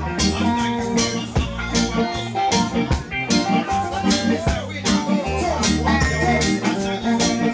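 Live reggae band playing with a steady drum beat, a heavy bass line and guitar, with a singer's voice on microphone over the top.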